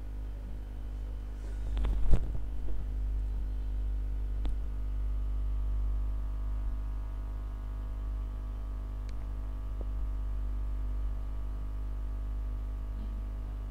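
Steady low electrical hum with a buzz of many even overtones. A short knock sounds about two seconds in, and a smaller click a couple of seconds later.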